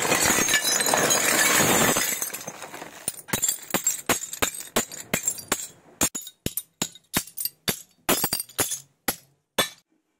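A dense clatter, then a run of sharp clinks, about two a second, that stops near the end.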